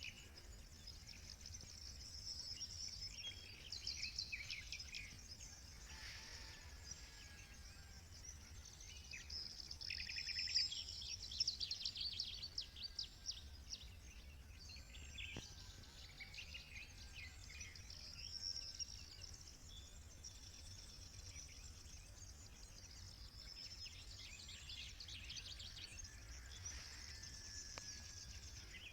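Several songbirds singing and chirping together, with rapid trills and repeated chirps overlapping throughout, over a steady low rumble.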